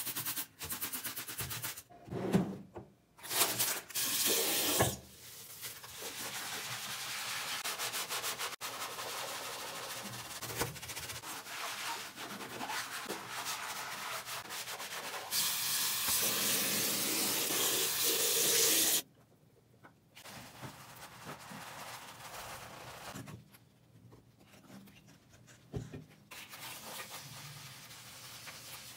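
Sponge scrubbing a ceramic washbasin: a steady rough rubbing that gets louder for a few seconds past the middle, then goes on more quietly in patches. In the first few seconds there are a few short, sharp sprays of cleaner from a trigger spray bottle.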